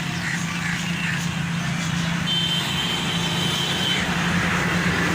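Steady low motor hum like an idling engine, with a few short high chirps and a held high whistle-like tone in the middle.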